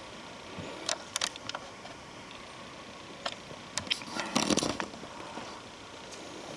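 Footsteps on the forest floor, dry leaves and twigs crackling and snapping underfoot in irregular bursts, thickest about two thirds of the way through, over a steady low rush of wind.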